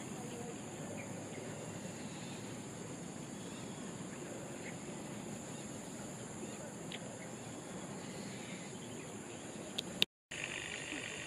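Outdoor ambience of tropical greenery: a steady high insect drone with a few faint, scattered bird chirps. Near the end the sound cuts out for a moment, and the insect chirring comes back louder.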